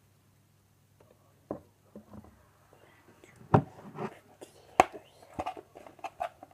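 Spoon knocking and scraping against a bowl as slime is stirred: a series of sharp irregular knocks, the loudest about three and a half and nearly five seconds in.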